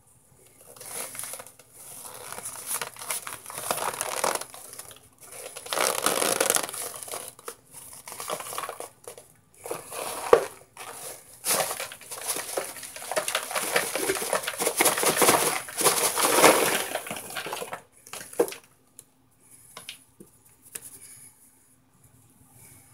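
Hard microwaved cornstarch chunks being crushed in a plastic bowl with the end of a cardboard cornstarch box: bouts of gritty crunching and scraping that thin out after about eighteen seconds.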